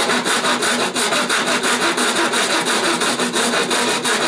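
Small hand saw cutting through the thin sheet metal of a dome to free a panel, in fast, even back-and-forth strokes, about six a second.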